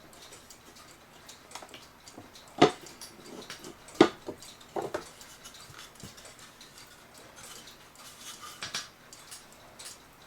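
Handling noises of small hard objects: irregular light clicks and clinks, with two sharper knocks a few seconds in.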